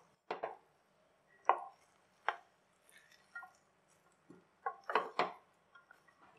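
Wooden spatula stirring cooked rice in a pressure cooker: a string of uneven knocks and scrapes of wood against the pot's rim and side, with a close cluster of strikes about five seconds in.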